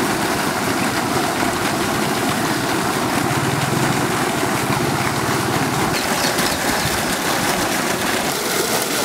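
Farm irrigation pump running steadily, with water gushing from its outlet pipe.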